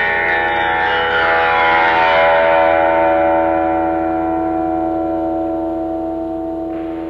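Background music ending on a long sustained chord that swells and then slowly fades out, with a falling sweep in the upper range in the first couple of seconds.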